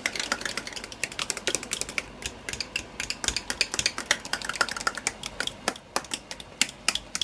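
Potato masher knocking against a stainless steel pot while mashing potatoes with butter and milk: a quick, irregular run of sharp clicks and clacks, several a second.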